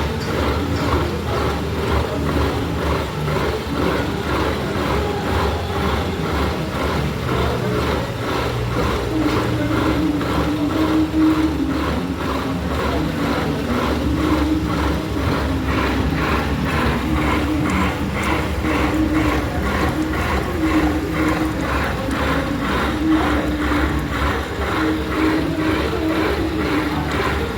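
Metal-cutting lathe running as it machines a steel ship's starter gear, with a continuous, regular rhythmic clatter and an intermittent low tone.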